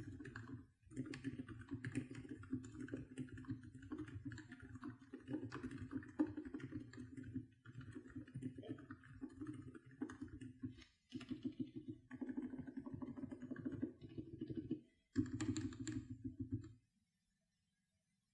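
Fast typing on a MelGeek Mojo68 mechanical keyboard fitted with TTC Frozen Silent switches: a dense, muted, low clatter of keystrokes in runs several seconds long with brief breaks, stopping shortly before the end.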